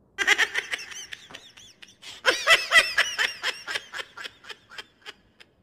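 A person laughing hard in two bursts of quick ha-ha pulses, the second burst louder, trailing off into a few last breathy laughs.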